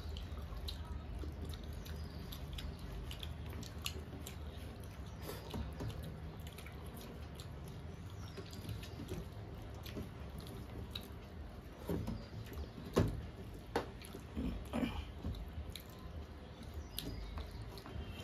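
Two people eating rice and mutton curry by hand from metal plates: fingers squishing and mixing the food on the plates, with chewing and small wet clicks over a low steady hum. A few louder clicks come about twelve to fifteen seconds in.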